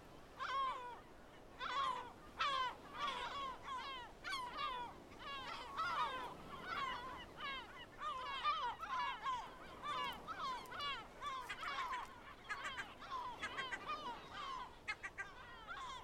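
A colony of yellow-legged gulls calling: many short calls that rise and fall in pitch, overlapping, several each second.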